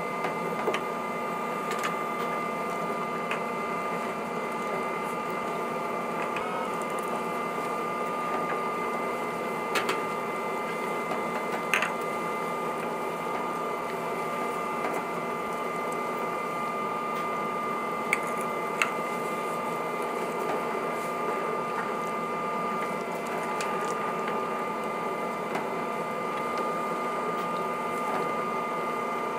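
A steady machine hum with a constant high whine that never changes in pitch. A few light clicks sound over it, about five times, like utensils touching a steel pot.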